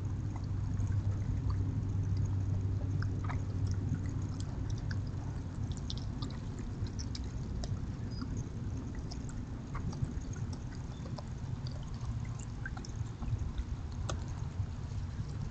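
An opossum and a raccoon eating from food dishes: scattered small clicks and smacks of chewing and of dishes being nosed, over a steady low hum.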